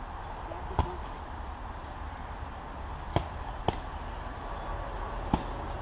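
Four sharp smacks of foam-padded LARP weapons striking shields and fighters, spaced irregularly over steady low background noise.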